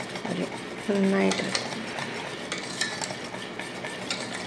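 Wire whisk beating thick gram-flour batter in a steel bowl: a steady wet swishing with faint ticks of the wires against the steel.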